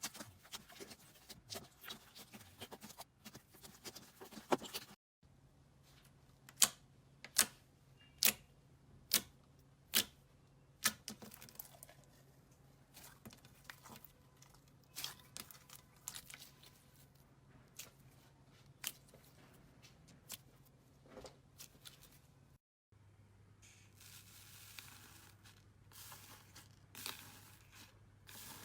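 Slime being squeezed, stretched and pulled apart by hand, making sticky tearing and crackling with sharp pops. In the middle section there is a run of loud pops, about one a second.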